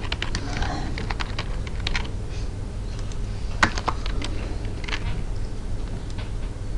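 Computer keyboard being typed on: irregular runs of key clicks over a low steady hum.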